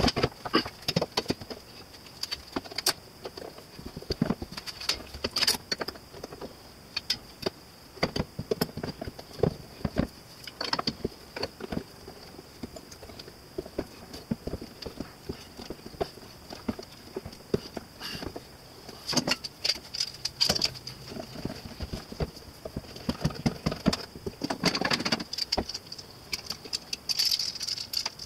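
Metal pipe clamps and bar clamps being handled and tightened: irregular clicks, clanks and rattles of metal on metal and wood, over a faint steady high whine.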